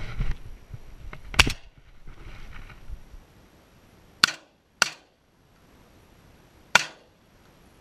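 Shotgun fired at flying doves: two sharp shots about half a second apart some four seconds in, then a third about two seconds later. Before them, rustling handling noise with one sharp bang about a second and a half in.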